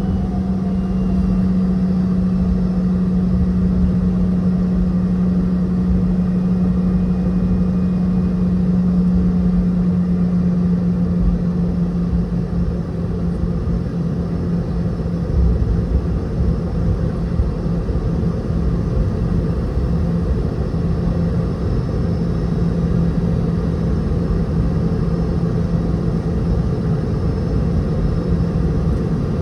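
Cabin drone of a Boeing 717's tail-mounted Rolls-Royce BR715 jet engines. It is a steady, loud hum with a strong low tone over a rumble, and the tone drops slightly partway through.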